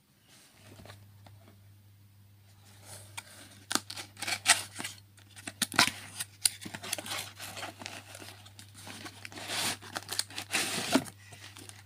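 Cardboard box being handled and opened by hand: quiet for the first few seconds, then scattered clicks, scrapes and taps of the cardboard, with plastic packaging crinkling near the end. A steady low hum sits underneath.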